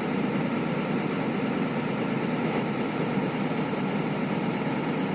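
Hino 500 truck's inline-six diesel engine running steadily at a raised idle of about 1,000 rpm, heard from inside the cab, while its air compressor refills air tanks that had been completely empty.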